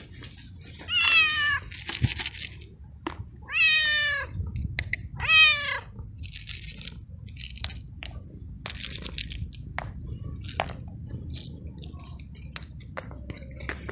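Male tabby cat meowing three times in drawn-out, falling calls: a tom in heat calling for a mate rather than for food, as the owner takes it. After that come small scattered crunches and clicks as the cat eats dry kibble.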